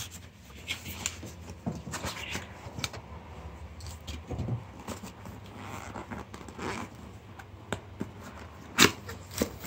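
Packaging being handled while a Bluetooth speaker is unboxed: cardboard and plastic scraping and rustling, with scattered small clicks and one sharp click near the end.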